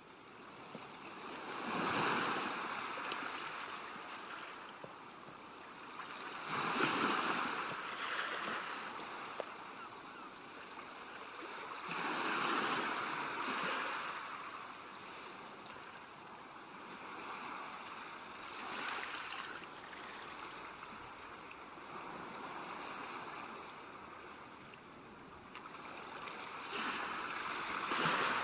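Ocean waves crashing in slow surges: five swells of rushing water, one about every five to six seconds, each fading back into a steady wash.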